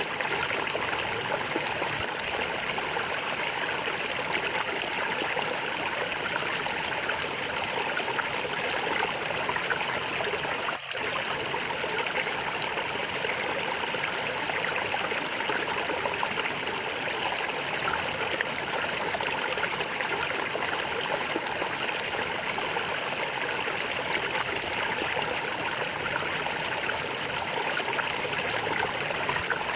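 Stream water flowing and gurgling steadily, with a brief drop in level about eleven seconds in.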